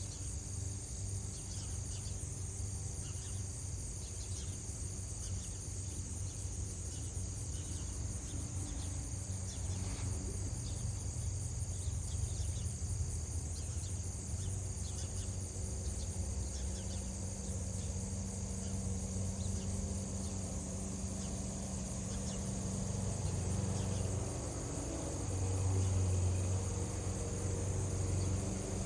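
Steady high-pitched insect chirring over a steady low hum, the hum swelling briefly near the end.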